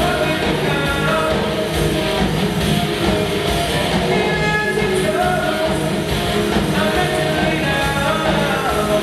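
A rock band playing live: electric guitars over a driving drum beat, with a held melody line.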